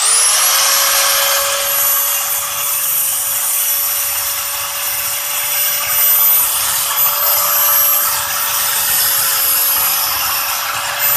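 Corded angle grinder switched on, its motor spinning up within a fraction of a second to a steady high whine. Its abrasive cutting disc then bites into a rusty steel exhaust pipe, throwing sparks, and the sound wavers slightly as it cuts.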